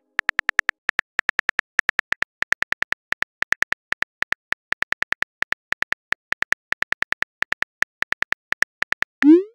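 Phone keyboard click sound effect, one short identical click per typed letter, coming several a second in quick irregular runs. Near the end, a short rising swoosh.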